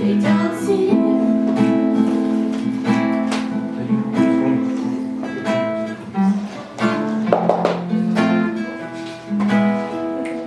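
Acoustic guitar playing chords, strummed and plucked, in an instrumental passage with no singing.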